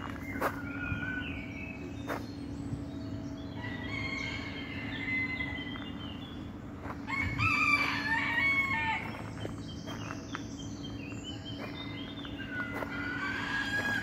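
Birds calling in a garden: several short whistled and sliding calls, and a louder, drawn-out call lasting about two seconds, about seven seconds in. A steady low hum runs underneath.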